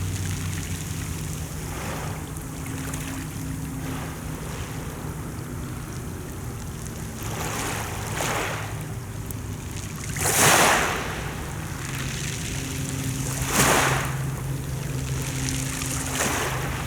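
Sea waves washing in, about five swells, the loudest about ten seconds in, over a steady low mechanical hum.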